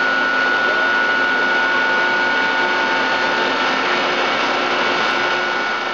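Giddings & Lewis CNC horizontal boring mill running under power: a steady mechanical hum and hiss with a high, steady whine over it.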